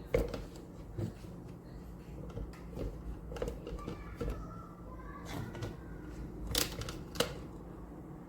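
Scattered light clicks and knocks of small hard objects being handled, over a steady low hum.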